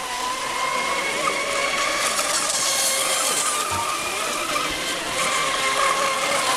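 Radio-controlled monohull racing boats running flat out across the water: a steady high-pitched motor whine that wavers slightly in pitch, over the hiss of spray.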